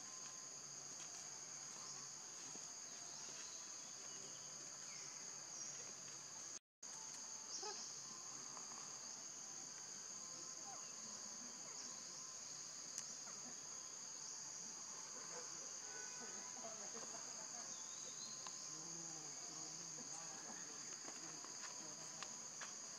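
Steady high-pitched drone of an insect chorus, cut off for an instant about seven seconds in.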